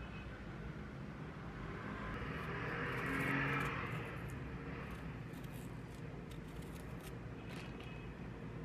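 Faint steady low rumble of background noise that swells and fades again about three seconds in.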